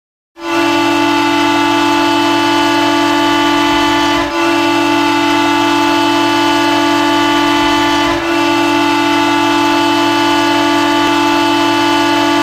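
Ice hockey goal horn blowing one low, steady tone in three long blasts of about four seconds each, run together with only very short breaks.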